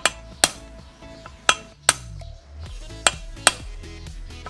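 Hammer blows ringing on metal as a crankshaft bearing is tapped into the crankcase. There are six strikes in three quick pairs. The bearing is a tight fit that heating alone did not seat.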